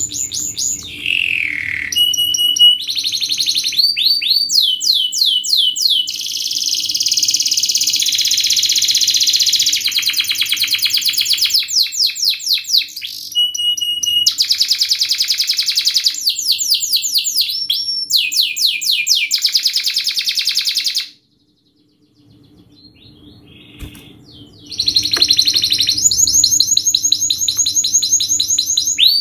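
Domestic canary singing a fast, dense song of rapid high-pitched trills and rolls. It breaks off for a few seconds about three-quarters of the way through, then starts again.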